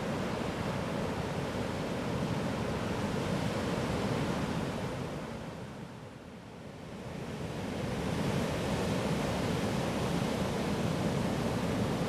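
Sea surf washing onto a rocky beach, a steady rushing noise that fades down and back up about halfway through.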